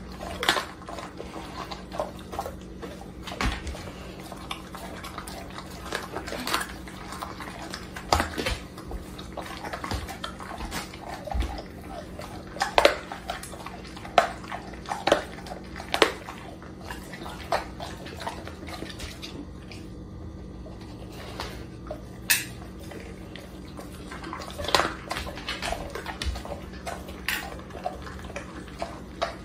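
A pit bull-type dog chewing a whole raw chicken, with irregular wet crunches and sharp cracks as it bites down.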